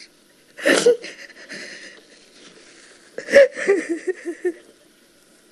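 A woman sobbing: two bouts of gasping, shaky crying, one about a second in and another around three and a half seconds in, with ragged breathing between.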